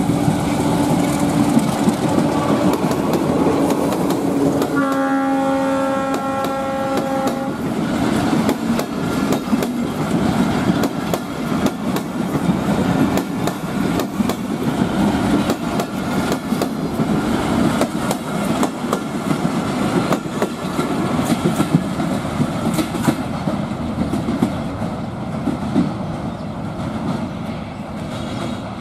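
A diesel locomotive hauling a passenger express runs past, sounding one horn blast of about two and a half seconds about five seconds in. The coaches then rattle by, their wheels clicking over the rail joints, and the sound fades as the train draws away.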